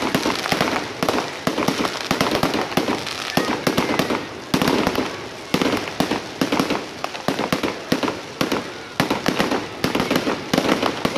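Fireworks display going off in a rapid, continuous string of bangs and crackles from bursting shells.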